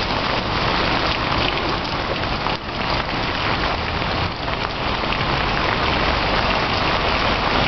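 Steady rush of water from a flood-swollen river running high and fast just under a footbridge.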